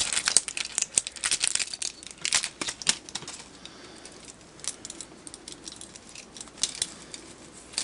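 A string of incandescent Christmas lights being handled: its plastic bulbs and wire clicking and rustling. The clicks come thick and irregular for the first three seconds, then only a few scattered ones follow.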